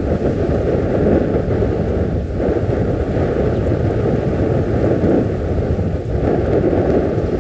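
Strong wind buffeting the microphone: a loud, steady rushing noise, deepest in the low end, swelling and easing slightly with the gusts.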